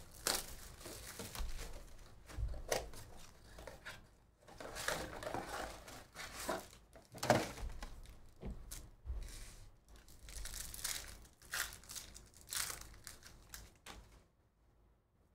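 Plastic wrap and baseball card pack wrappers being crinkled and torn open by hand, in irregular rustling bursts with one sharper, louder burst about seven seconds in.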